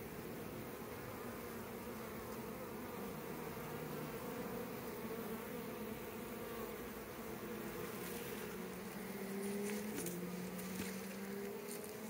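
Honeybees buzzing in numbers at a busy hive entrance: a steady hum, with the pitch shifting and gliding as single bees fly close past.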